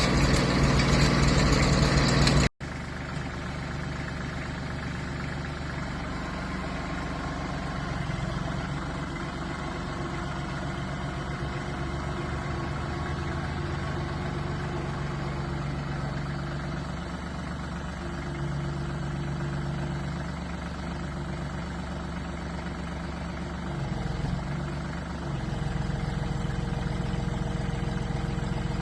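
Branson tractor's diesel engine running steadily. For the first couple of seconds a louder, harsher noise lies over it and cuts off abruptly. After that the engine note shifts a few times and steps up slightly near the end.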